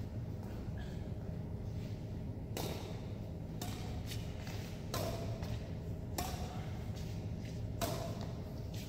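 Badminton rackets striking a shuttlecock in a rally: five sharp hits, starting a little over two seconds in and coming about every second and a half, over a steady low hum.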